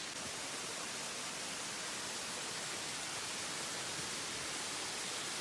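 A small rainforest waterfall pouring over a rock face: a steady, even rushing hiss of falling water.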